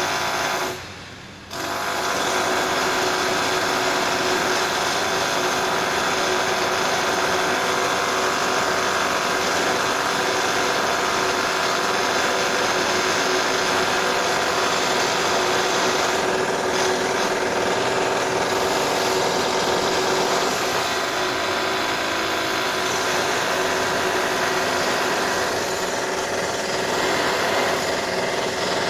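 Power drill from renovation work running steadily with a whine, cutting out briefly about a second in and then starting again.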